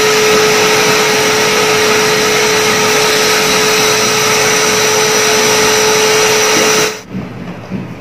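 Euroclean WDX2 wet-and-dry vacuum cleaner running, a steady rush of air under a constant motor hum and whine. It is switched off about seven seconds in, and the sound cuts off suddenly.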